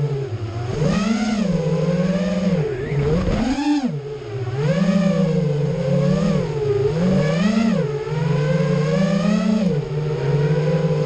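FPV drone's electric motors and propellers buzzing loudly, the pitch swooping up and dipping back every second or so as the throttle is punched and eased.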